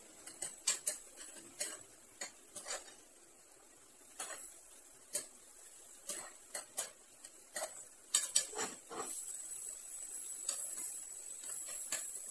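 Spatula clacking and scraping against a non-stick frying pan as diced meat is stir-fried, in irregular strokes. A steady frying sizzle grows louder about eight seconds in.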